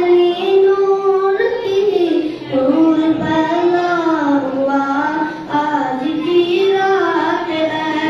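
A boy singing a naat into a handheld microphone: one voice holding long notes that slide from pitch to pitch.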